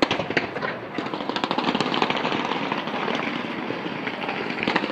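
Fireworks going off: a sharp bang at the start, then dense, continuous crackling and popping, with a cluster of louder cracks near the end.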